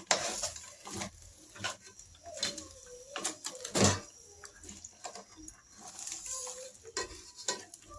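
Irregular clicks and knocks of a cooking utensil against a metal pot as the fish in it is turned, the loudest knock about four seconds in.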